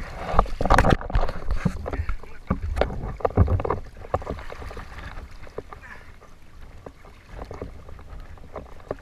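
River water splashing and sloshing against a man wading with a large harpooned catfish, with a low rumble of water and wind on the microphone. It is choppy and loud for the first few seconds, then settles into a quieter lapping.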